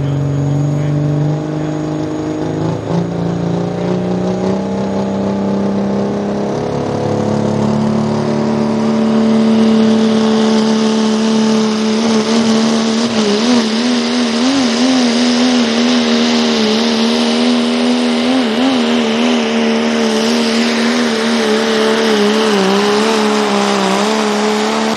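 Diesel Dodge Ram pulling truck at full throttle dragging a weight-transfer sled: the engine's pitch climbs over the first several seconds, then holds high and wavers as the truck bounces down the track, with a steady hiss above it. The engine note drops right at the end as the pull ends.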